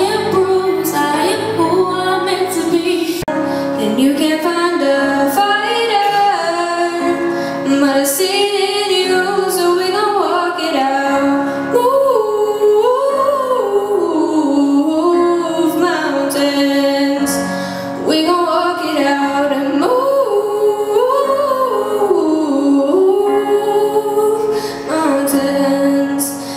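A young woman singing a solo into a handheld microphone, her melody carried over sustained musical accompaniment.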